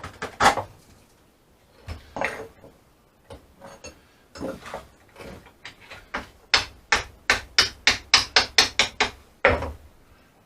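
Hammer blows: a few spaced strikes, then a quick run of about a dozen at roughly four or five a second, ending in one heavier blow.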